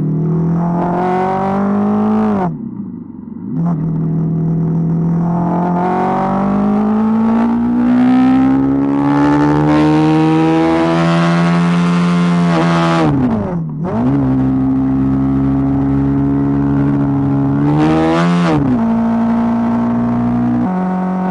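BMW GS motorcycle engine under way, with wind rushing past. It revs up, dips briefly as the throttle closes about two seconds in, then pulls through a long rising sweep. The pitch drops sharply at gear changes about two thirds of the way through and near the end, each time settling to a steady cruise.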